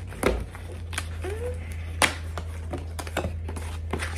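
Irregular clicks and taps of a product box and its packaging being handled and opened by hand, over a steady low hum.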